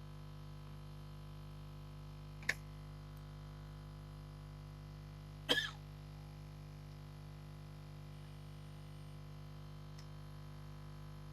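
Faint steady electrical hum, with two short sharp clicks about two and a half and five and a half seconds in.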